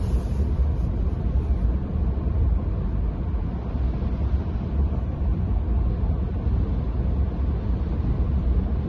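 Steady low rumble of road and wind noise inside the cabin of a 2022 Rivian R1T electric pickup cruising at highway speed with a boat in tow. No engine note is heard under the towing load, since the truck is electric.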